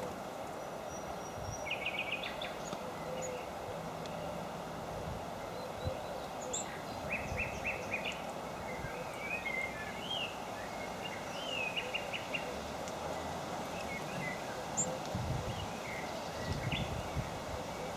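Small birds chirping, with quick runs of repeated notes and short warbling phrases scattered throughout, over a steady background hiss.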